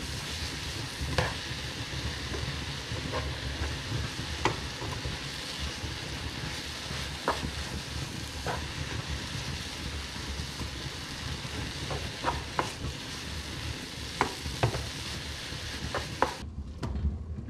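Mushrooms and spinach sizzling in a hot frying pan while a spatula stirs them, with scattered sharp clicks of the spatula against the pan. The sizzle cuts off suddenly near the end.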